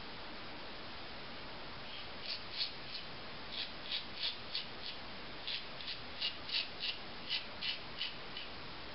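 Gillette Slimtwist double-edge safety razor with a Wilkinson Sword blade scraping through lathered stubble on the neck: short rasping strokes, two or three a second, starting about two seconds in.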